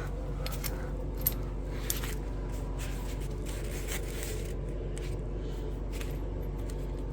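Small removed exhaust bolts clicking and rattling lightly as they are handled, a few scattered faint clicks over a steady low hum.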